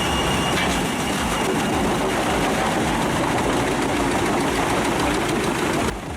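Heavy machine engine running steadily under a dense mechanical clatter, dropping abruptly to a quieter engine sound just before the end.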